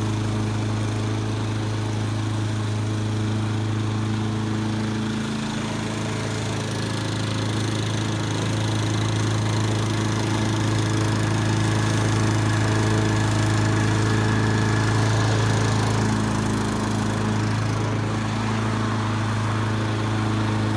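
Honda walk-behind lawnmower's 5.5 horsepower four-stroke engine running steadily, just after being pull-started.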